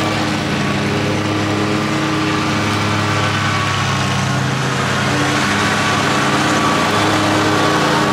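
A 60-inch zero-turn lawn mower's engine running steadily under way, its hum wavering slightly in pitch.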